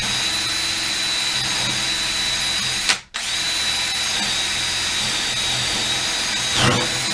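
Electric drill with a spade bit boring through a wooden walking stick, finishing the hole from the second side. The motor whines steadily, stops briefly about three seconds in and spins back up, and its pitch dips under load near the end.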